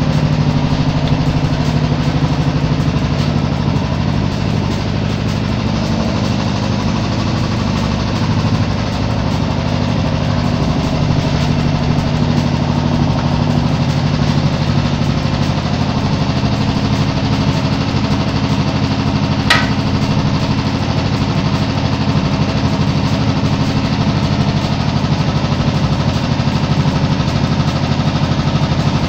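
Royal Enfield Bullet 500 EFI single-cylinder engine idling steadily with an even, regular beat. A single sharp click sounds about two-thirds of the way through.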